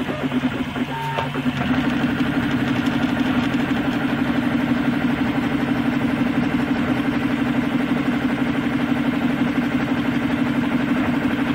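RepRap MendelMax 3D printer running, its stepper motors buzzing steadily as the carriage moves the hot end back and forth laying down PLA. The buzz comes in strongly about a second and a half in, after a few trailing musical notes.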